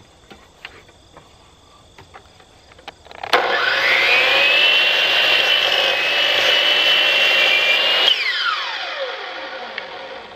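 DeWalt 12-inch miter saw with a Diablo 44-tooth carbide blade starting up about a third of the way in with a rising whine, cutting through a wide oak board at a steady pitch, then switched off and spinning down with a long falling whine. A few light clicks of the board being set in place come before it.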